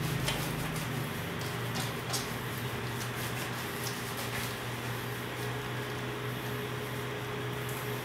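A steady low hum with faint scattered clicks and rustles, in a small tiled room.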